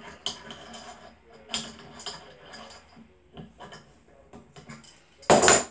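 Metal tools clicking and clinking against a BSA B31 engine's timing side as the main shaft pinion is worked off with a puller, with a louder clatter of about half a second near the end.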